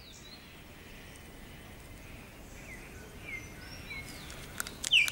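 Forest ambience: a soft steady hiss with scattered short, high bird chirps from about halfway in, and a few sharp clicks and a louder chirp near the end.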